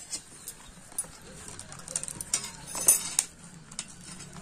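Metal forks and cardboard takeaway food boxes being handled on a ceramic plate: a few light clicks and clinks amid soft rustling, with sharper ticks about a second in and again near three seconds.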